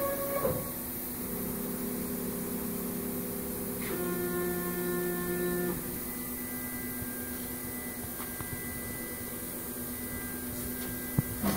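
MPM AP36 solder-paste stencil printer running: a steady machine hum of several tones that change and switch on and off every second or two as its drives move, with a sharp click near the end.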